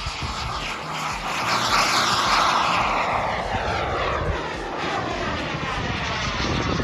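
Radio-controlled model jet's engine rushing past the field, loudest about two seconds in, then dropping in pitch and easing off as the jet climbs away.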